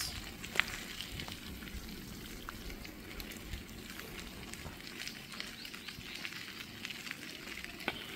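Steady rain falling on a wet paved street: an even hiss with many small scattered ticks of drops and a few sharper ticks.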